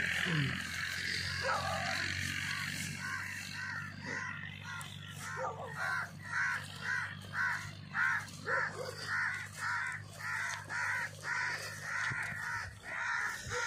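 A bird calling in a long, evenly spaced series of harsh calls, about two a second, starting about halfway through, over a faint steady low hum.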